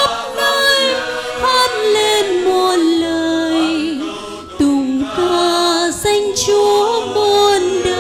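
Women's church choir singing a Vietnamese Catholic hymn, led by a female soloist on a microphone, with long held notes over a sustained low accompaniment.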